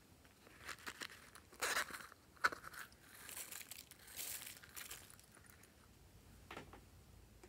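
Crinkling and crunching from hands handling a plastic squishy toy and scattering plastic sequins over slime and clay in a glass bowl: a few sharp crinkles, then a longer hissing patter in the middle.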